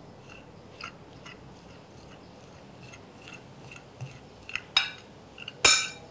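Metal spoon stirring a potato and pea filling in a glass bowl: soft clicks about twice a second as it works through the mixture, then two louder clinks of the spoon against the glass near the end.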